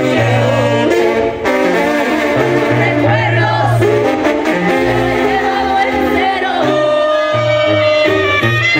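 Live banda music over a loud PA: brass horns playing held notes over a tuba bass line.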